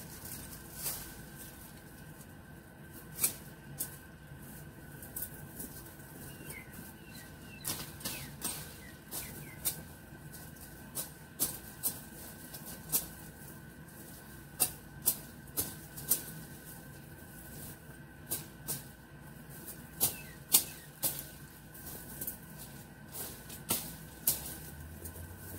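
Irregular sharp snaps and crackles, sometimes several a second and sometimes a second or two apart, of someone working by hand in dry twigs and leaf litter under shrubs. A faint steady high whine sits underneath.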